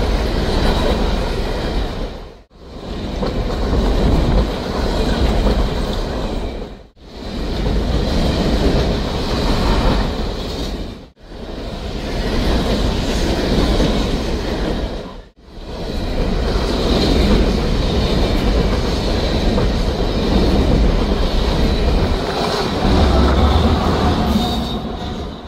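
Loaded coal train passing close by: steel wheels rumbling and clacking over the rails, with a high-pitched wheel squeal running through it and a deeper rumble near the end. The sound cuts out briefly four times, about every four seconds.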